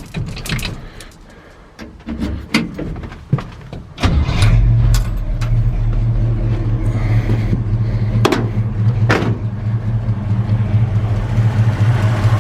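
A 1963 Chevy C30 truck's engine starts about four seconds in and settles into a steady idle through Flowmaster mufflers, with a little valve noise and none of the intermittent clunk the owner took for a possible rod knock. Before it starts there are a few clicks and knocks from the cab, and two sharp knocks sound over the idle.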